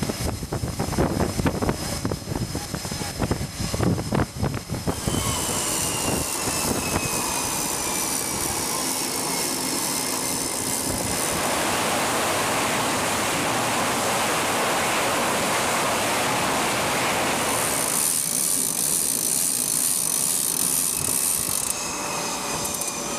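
Aircraft jet engines running on a carrier flight deck: a steady turbine whine that slowly falls in pitch, with a stretch of louder rushing noise in the middle. The first few seconds hold irregular rumbling and knocking.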